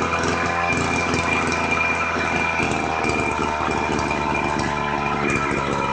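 Small single-cylinder engine of a portable engine-driven water pump running steadily after repair, now firing with a new carburettor diaphragm and an adjusted air-fuel mixture.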